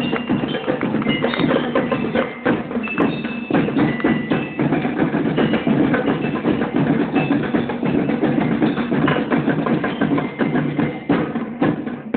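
Marching band playing: a dense, fast drum beat with short ringing bell lyre notes over it.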